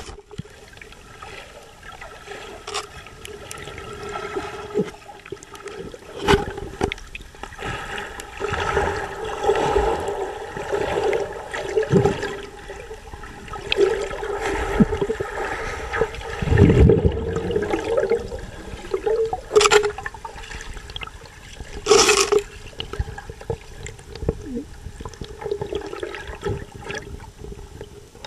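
Underwater sound recorded from a small remote-controlled diving robot: water gurgling and sloshing around the housing, with a steady hum from its motors and a few sharp knocks. A loud low rumble comes about two thirds of the way through.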